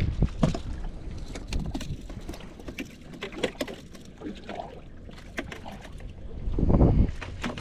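Scattered clicks and knocks from handling on a small fishing boat's deck, over a low rumble, with a louder low thump near the end.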